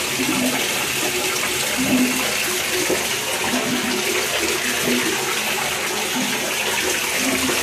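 Water running steadily in a bathtub, a continuous rush.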